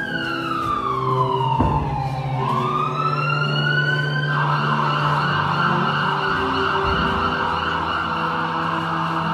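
Emergency siren wailing: one long fall and rise in pitch, then from about four seconds in a steady, harsher continuous tone.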